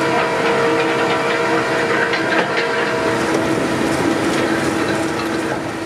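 Ropa Euro-Maus sugar beet cleaner-loader running, with steady hiss and hum from the machine and beets knocking and clattering along its conveyors; the sound starts to fade near the end.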